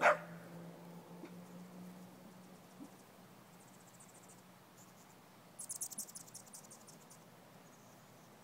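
A dog gives a single short bark at the start. It is followed by faint outdoor quiet with a low steady hum for the first couple of seconds, and a rapid high-pitched chirping trill about six seconds in that lasts just over a second.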